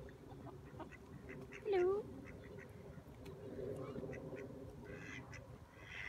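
Mallard ducks quacking in short, scattered calls, with one louder call that dips and rises in pitch about two seconds in.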